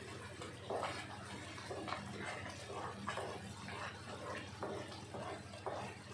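A spatula stirring a thick, sticky mixture of melting jaggery, spice paste and grated dried coconut in a nonstick kadhai: irregular wet squelching and scraping strokes about once or twice a second.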